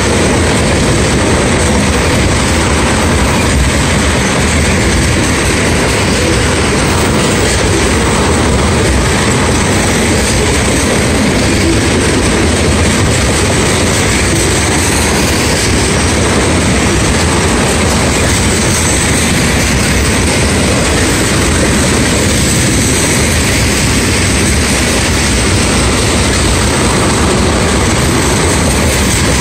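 Tank cars of an ethanol freight train rolling past close by: steel wheels on the rails make a loud, steady rolling noise that does not let up.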